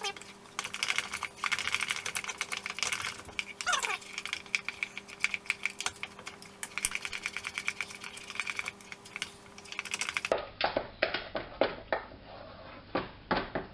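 A spoon beating a thick mascarpone and egg-yolk mixture in a bowl, with rapid, irregular clicking of the spoon against the bowl and a short falling squeak about four seconds in.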